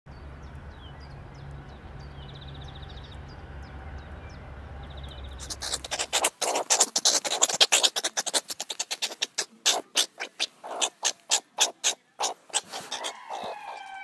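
Animal calls: faint high chirps over a low hum for about six seconds, then a fast run of loud, sharp clicking calls that slows toward the end, then a few falling whistled tones in the last second.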